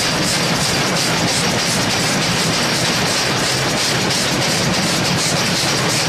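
Steam locomotive under way, heard from beside its driving wheels: a steady, loud hiss of escaping steam with a fast, even pulsing in it, over the wheels running on the rails.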